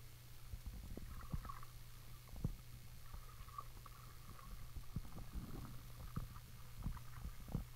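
Muffled underwater sound picked up by a camera submerged in a swimming pool: a low rumble with a steady low hum and irregular knocks and faint clicks as the water moves.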